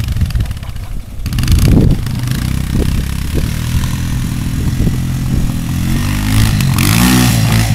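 A four-wheeler (quad ATV) engine running as it is ridden through snow, getting louder about a second in and revving up and down near the end.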